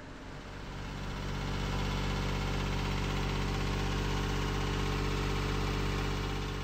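Sailboat's inboard engine idling steadily after its valves have been adjusted, a low even drone that grows louder over the first second or so.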